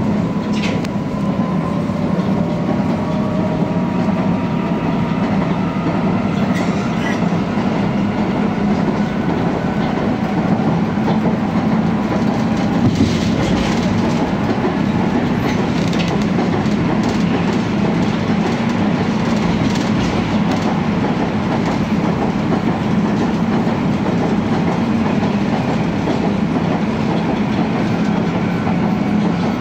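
Tatra T4D tram running along the track with a steady hum, wheels clacking over rail joints now and then, and a faint whine sliding in pitch during the first few seconds.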